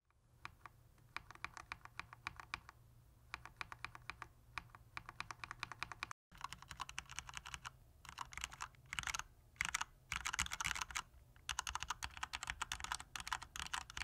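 Razer yellow linear switch pressed over and over in quick succession, then, after a cut about six seconds in, typing in bursts on a mechanical keyboard fitted with Razer yellow linear switches. The keystrokes are quiet and have no click, as befits a linear, silent switch.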